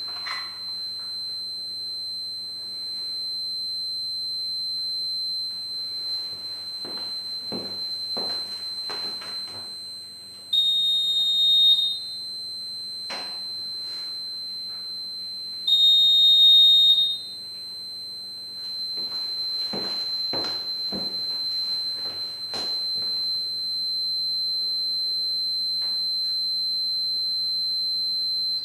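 Electronic alarm sounder of a Concept smoke-screen unit: a steady high-pitched tone, with two louder buzzer beeps of just over a second each, about five seconds apart. Scattered knocks sound in between, and the tone cuts off suddenly at the end.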